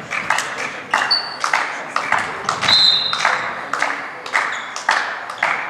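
Sharp knocks echoing through a sports hall, about two to three a second, with two brief high squeaks.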